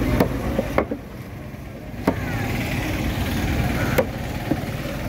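Steady low outdoor rumble with several sharp knocks scattered through it, one at a time a second or two apart.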